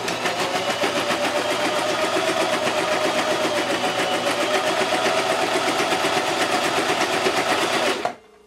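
Singer Simple entry-level sewing machine with a light-duty motor running steadily with a fast, even stitching rhythm as it sews through four layers of fleece. It stops suddenly about eight seconds in.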